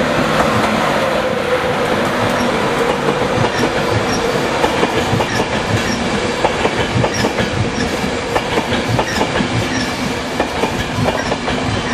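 East Coast Class 91 electric locomotive and its Mark 4 coaches running past: a steady rush of wheels on rail with a regular clickety-clack as the wheels cross the rail joints, easing off slightly near the end.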